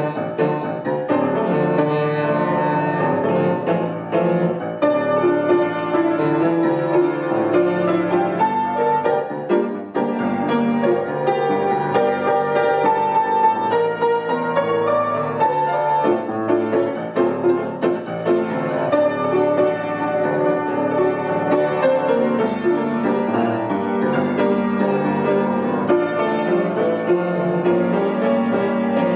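Instrumental piano music: chords with a melody line played over them, with no singing.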